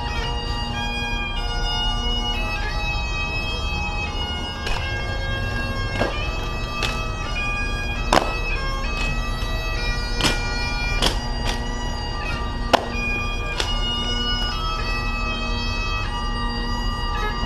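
Bagpipes playing a tune over their steady drone, with a few sharp clicks scattered through, the sharpest about thirteen seconds in.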